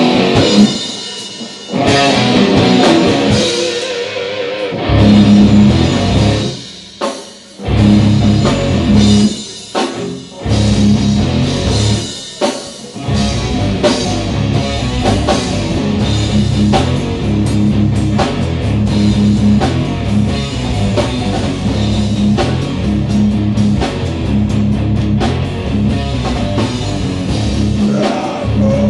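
Live heavy metal band playing electric guitars and a drum kit. The riff stops and restarts several times in the first half, then the band plays on steadily.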